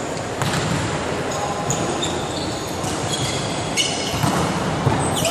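Volleyball rally in a reverberant sports hall: the smack of the serve about half a second in, then high squeaks of sneakers on the court floor and more sharp ball hits near the end, over a background of voices.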